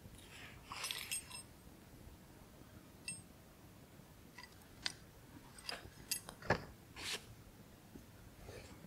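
Small campfire of sticks crackling with scattered sharp pops, the loudest a little past the middle. A few light metallic clinks come about a second in and again around three seconds.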